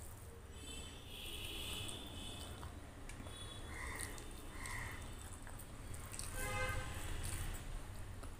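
Wet squishing and dripping of rice being mixed with curry by hand on a steel plate, with chewing and mouth sounds and a few short squeaky wet sounds, the loudest about two-thirds of the way through.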